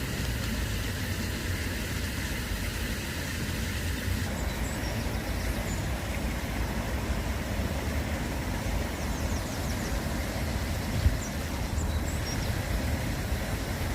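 Steady low outdoor rumble, with a few faint, short high bird chirps and a single click about eleven seconds in.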